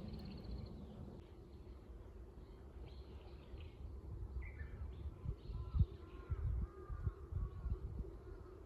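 Small birds chirping faintly outdoors, with a person's footsteps on the ground coming in from about five seconds in.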